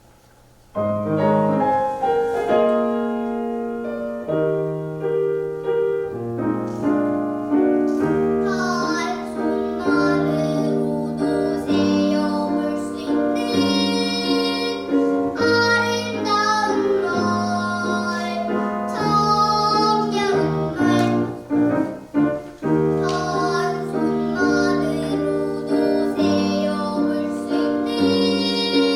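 A piano accompaniment starts suddenly about a second in, and a young child begins singing a Korean children's song over it about eight seconds in.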